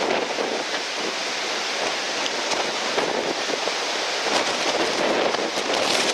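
Strong onshore wind and breaking surf: a steady rushing noise with no distinct events.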